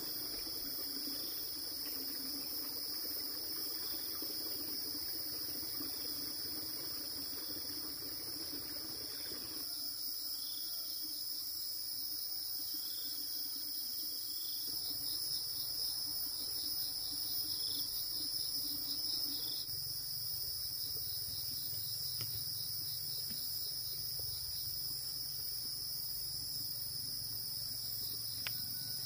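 Insects calling in a steady, high-pitched chorus, with a run of rapid pulsing calls from another insect about halfway through.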